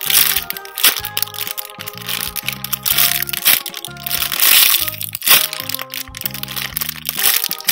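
Clear plastic bag crinkling and crackling as a foam squishy toy is squeezed inside it, louder about four to five seconds in. Background music with a bass line plays underneath.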